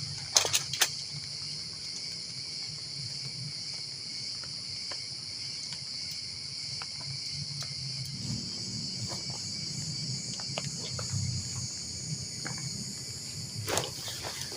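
Steady high-pitched chorus of insects, cricket-like, with a low hum underneath. A few sharp clicks come in the first second, and a knock comes near the end.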